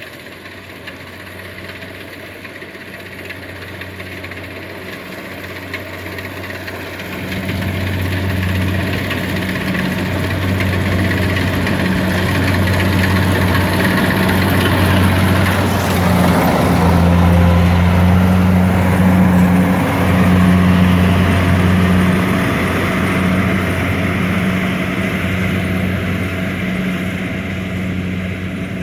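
Kubota DC70 combine harvester running steadily under a diesel engine's hum, with a broad mechanical rush above it. It grows louder about a quarter of the way in, is loudest a little past the middle, and eases slightly near the end.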